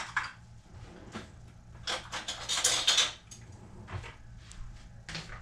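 Kitchen handling sounds: a few knocks and clatters of things being picked up and set down, with a longer scraping rustle about two seconds in.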